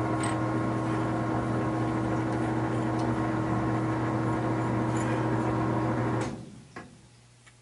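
A machine's steady electric hum with a strong low buzz, which stops suddenly about six seconds in. A couple of light clicks follow.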